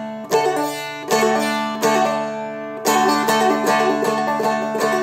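Seagull Merlin M4, a four-string dulcimer-style instrument, strummed with straight strums while the melody string does a double pull-off from the 4th fret to the 2nd to open. The strums come about a second apart at first, then speed up to several a second about three seconds in.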